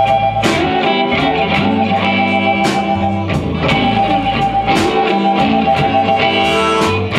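Live blues band playing an instrumental passage between vocal lines. An amplified harmonica holds long notes over electric guitar, bass guitar and drums with regular cymbal hits.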